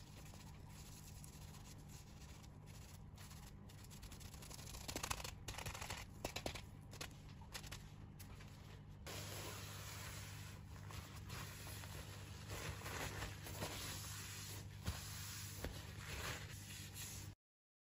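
Faint sponge scrubbing and wiping on a kitchen countertop: scratchy rubbing with scattered light clicks and knocks, over a steady low hum. It cuts off abruptly just before the end.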